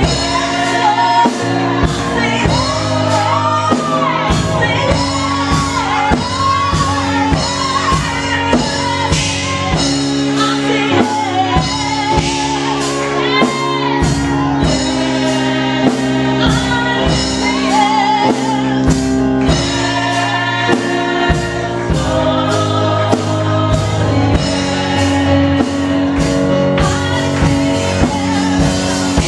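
Live gospel praise-and-worship music: a mixed group of singers with keyboard accompaniment over a steady beat.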